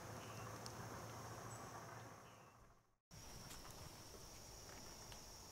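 Faint high, steady insect chorus with a few small clicks. It fades out to silence about halfway through, then comes straight back.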